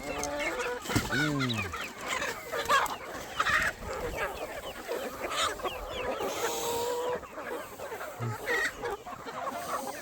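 A flock of chickens clucking and squawking in many short overlapping calls as they are let out of their coop, with a louder falling call about a second in.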